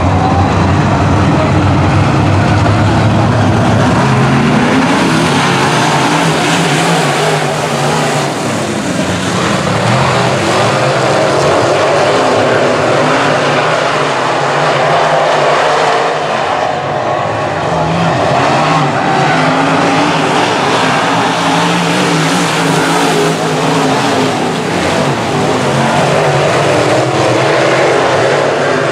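A pack of semi late model dirt-track race cars at racing speed, their V8 engines running loud and steady, pitch rising and falling as the cars go past.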